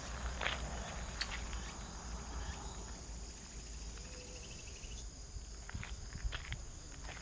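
Insects chirping steadily in a high, thin band, with a few scattered footsteps or light knocks.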